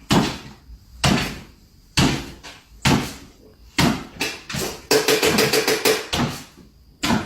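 A series of sharp knocks or thumps, roughly one a second, with a quicker rattling run of strokes about five seconds in.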